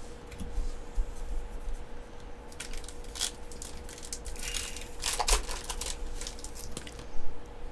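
Yu-Gi-Oh booster pack foil wrappers and trading cards being handled: crinkling and rustling strokes in two bursts, about three and five seconds in, with a few soft knocks on the tabletop.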